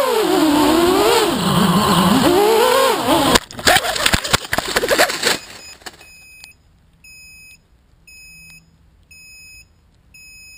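FPV quadcopter's brushless motors (RCX 2208 2300kv on 6-inch props) whining, their pitch dipping and rising, then a crash into branches about three and a half seconds in: clattering and rustling as the motors stop. From about six seconds the downed drone beeps steadily about once a second.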